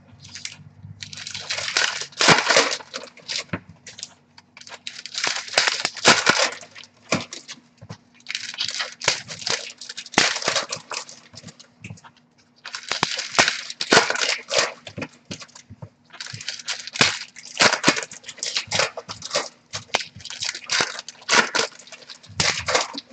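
Wrappers of 2019 Topps Gypsy Queen baseball card packs crinkling and tearing as the packs are ripped open, in repeated rustling bursts of a second or two with sharp crackles between them.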